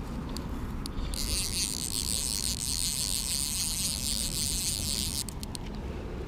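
Redington fly reel ratcheting in a steady high buzz while a hooked fish is being fought. It starts about a second in and stops abruptly about four seconds later, over a low rumble.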